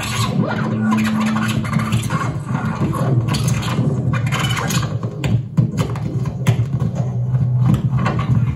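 Harsh noise electronics played live on a small mixer and effects pedals: a dense, scratchy wash over a steady low hum, with sharp clicks and crackles coming thicker from about halfway through.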